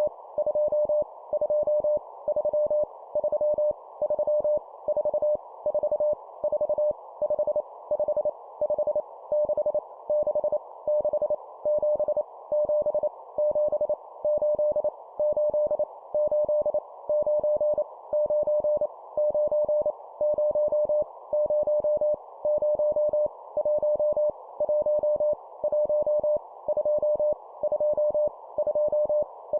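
Morse code (CW) sent at 25 words per minute as a single steady beep tone keyed on and off in dots and dashes, sending numbers, over a soft steady hiss.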